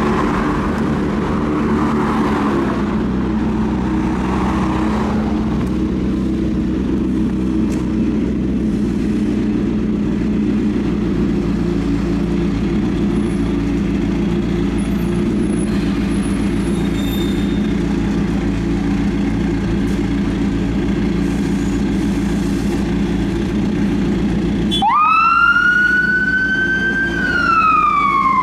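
Volvo FL fire engine's diesel engine running steadily as it pulls out. Near the end its siren comes on: a wail that rises, holds briefly, then falls.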